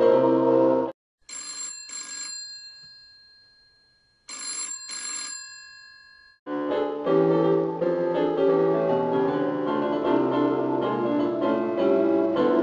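A telephone bell rings twice, each time a quick double ring that dies away, about three seconds apart. Instrumental music stops just before the rings and starts again after them.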